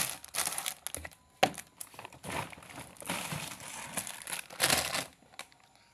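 Plastic packaging crinkling and rustling in irregular bursts as items are pulled out of a parcel, with a sharp click about a second and a half in.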